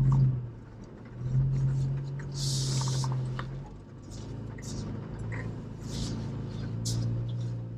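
Jeep Wrangler's engine running at low revs, heard from inside the cabin as it crawls over a trail obstacle; the drone swells for a couple of seconds about a second and a half in. Scattered knocks and creaks and a brief hiss about two and a half seconds in.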